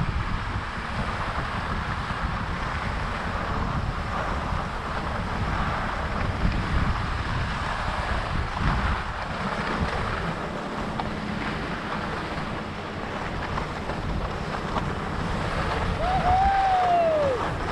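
Wind buffeting the microphone of a skier moving downhill, with the hiss and scrape of skis sliding over packed snow. Near the end a short high call rises and then falls in pitch.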